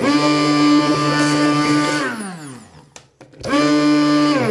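Tefal Powelix ActivFlow 1500 W hand blender running at full speed, its blade puréeing strawberries and banana in a plastic beaker. It runs in two bursts: a steady whine for about two seconds that then winds down with a falling pitch, and a second burst starting about three and a half seconds in that winds down again near the end.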